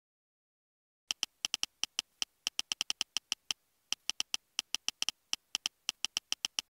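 iPhone on-screen keyboard key clicks as a message is typed, a quick run of short ticks at several a second with a brief pause about halfway through.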